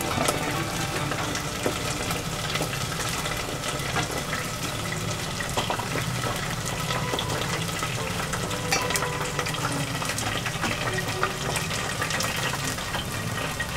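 Chicken karaage deep-frying in a pot of hot oil: a steady sizzle full of sharp crackles and pops, over a steady low hum.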